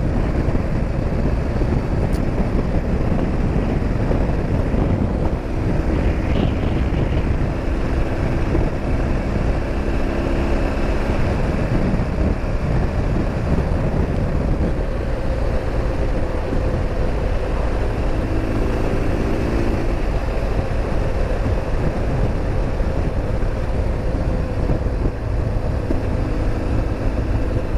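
BMW R 1200 GS motorcycle riding at road speed: the steady drone of its flat-twin engine under heavy wind rush on the microphone. The engine's note stands out more clearly at times.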